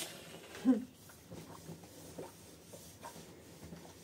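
A clothes iron sliding over fabric, giving faint scattered scraping and rustling. Near the start there is one short, low voice-like sound.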